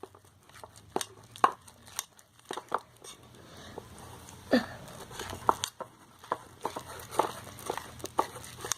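Sticky clear-glue and detergent slime being mixed and worked: irregular wet clicks, squelches and small pops.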